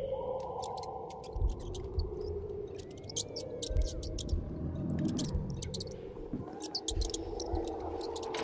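Eerie ambient sound design: wavering sustained tones, scattered sharp crackling clicks, and low thumps that come in pairs every couple of seconds.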